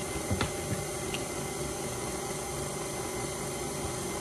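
Tilt-head stand mixer running steadily at low speed, its flat beater creaming softened cream cheese and butter, with a faint click about half a second in.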